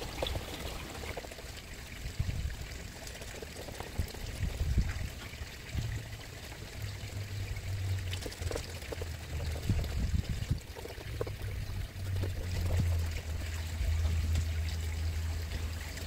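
Pond water trickling and pouring steadily, over a low uneven rumble, with scattered light clicks and knocks from hands working on the skimmer's plastic front plate.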